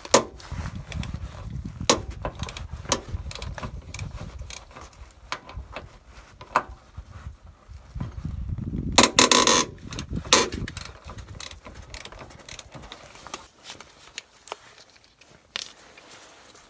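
Metal hand tools and bolts clinking and knocking under a car as a socket ratchet is worked on the lower suspension arm's mounting bolts: scattered sharp clicks, with one longer, louder rattle about nine seconds in.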